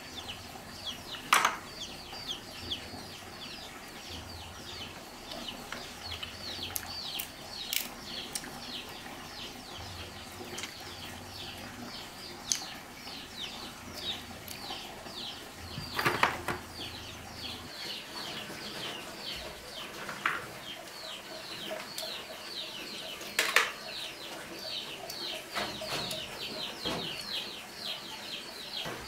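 Birds cheeping rapidly and without a break, several short high falling calls a second. A few sharp clicks stand out over them, the loudest near the middle.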